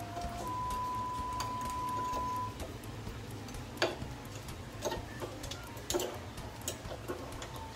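A steady high tone for about two seconds near the start, then a handful of sharp, irregular clicks and taps, such as hard objects knocking together.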